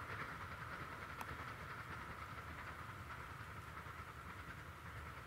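Bure Valley Railway 15-inch-gauge passenger train running away along the track, a faint steady rumble fading into the distance.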